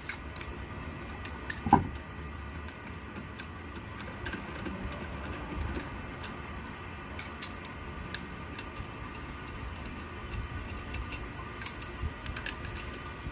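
Scattered light metallic clicks and clinks of tools and wheel hardware being handled, with one sharper clank about two seconds in, over a faint steady hum.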